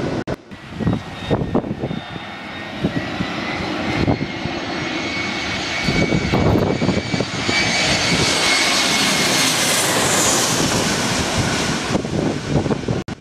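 Jet airliner engines whining and rumbling as the planes pass low with gear down on final approach to land. The sound jumps abruptly between several passes, and the whine swells loudest a little after the middle.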